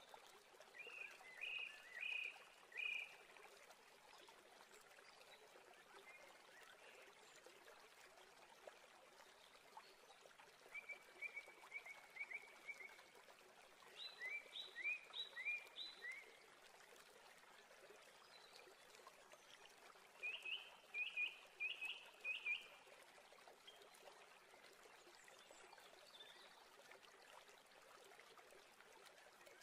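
A bird singing four short phrases, each a quick run of a few chirping notes, some slurred upward, over a steady background hiss.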